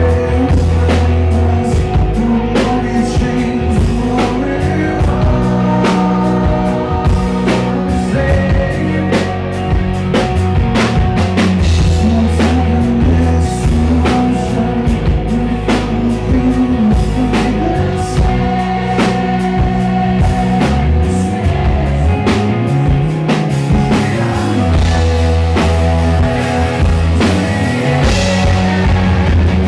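Live rock band with a drum kit playing while a man sings the lead vocal into a microphone.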